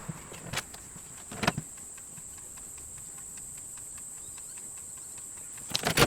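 Light clicks and taps of hand-sewing a leather sheath with a needle and waxed thread, a few isolated ones early on and a quick cluster near the end. A steady high-pitched whine runs underneath.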